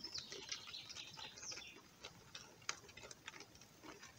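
Faint, scattered light clicks and rustles as a mesh crayfish trap is handled and live crayfish are picked out of it, with faint bird chirps during the first second and a half.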